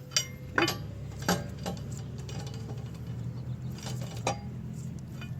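Metal lug nuts clinking as they are threaded onto the wheel studs of a car's wheel: a handful of sharp clicks and taps a second or so apart, over a low steady hum.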